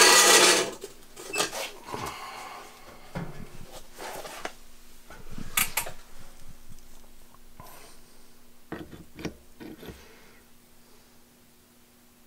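Steel parts of a super spacer indexing fixture being handled and fitted on a workbench: a loud rustling scrape at the start, then scattered clinks and taps, with two sharp clicks about halfway through and a quick run of clicks a little later, dying away near the end.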